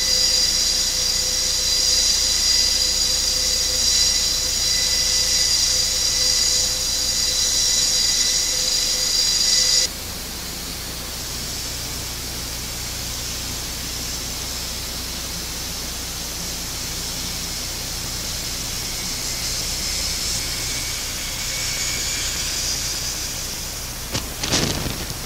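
Airbus A400M Atlas TP400 turboprop engines running on the ground: first a loud, steady, high-pitched turbine whine; about ten seconds in it cuts abruptly to a quieter, steady rushing drone of the propellers as the aircraft taxis. A brief loud swish sounds about a second before the end.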